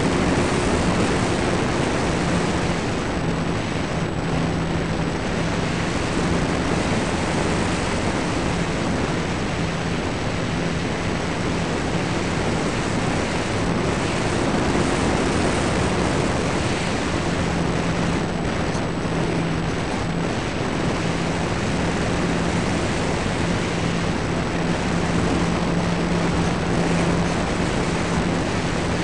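Wind rushing over the mic of a small camera in the belly of a ParkZone T-28 Trojan RC plane in flight, with the steady drone of its electric motor and propeller that grows stronger and fades several times.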